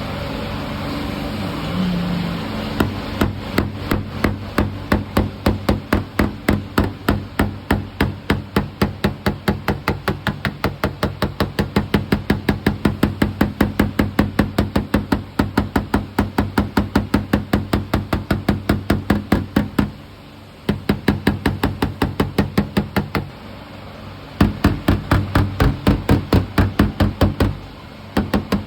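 A hammer tapping steadily on a car's front door panel to knock out a dent, about three blows a second, with short breaks near the middle and near the end. A steady low hum runs underneath.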